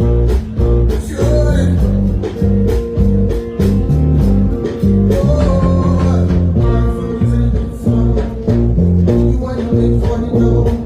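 Live band playing an instrumental passage at a sound check, with electric guitar over a pulsing bass line and drums. A singing voice is faintly in it.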